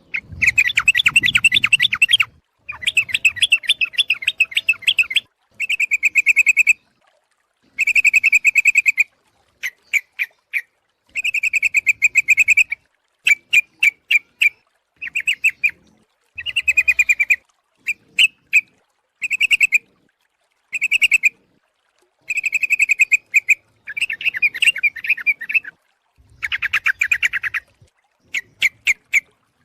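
Yellow-vented bulbul (trucuk) calls, played as a lure to bring in other bulbuls and billed as a female calling the male. The calls come in repeated bursts of fast, bubbly chattering, each lasting from half a second to a couple of seconds, with short silent breaks between them.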